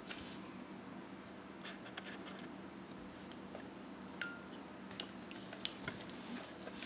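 Handling noise of a Nikon EM film camera body turned in the hands: faint rubbing and a few small clicks, the sharpest about four seconds in with a brief metallic ring, then several lighter clicks.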